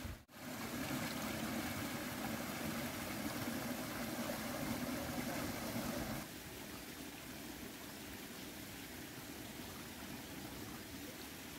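Steady rush of a small river flowing, dropping suddenly to a quieter level about six seconds in.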